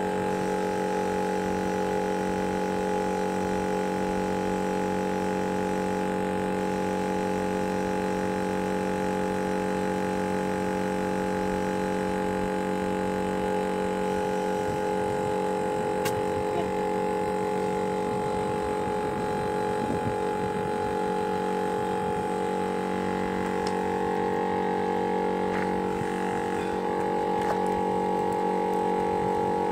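Air compressor running with a steady droning hum, starting abruptly, while a van tyre is pumped up at its valve to bring the air pressure level with the other tyres.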